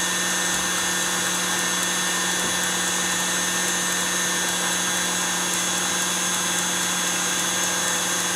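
Electric mixer running steadily, its whisk whipping egg whites into a meringue foam. It holds a constant, even motor whine.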